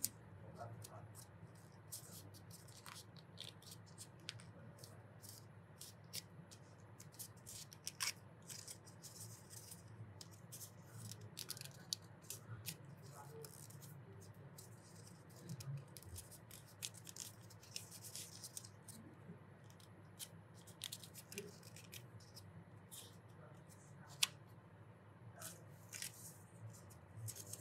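Origami paper being folded and creased by hand: faint, scattered crinkling, scraping and small clicks of paper, over a low steady hum.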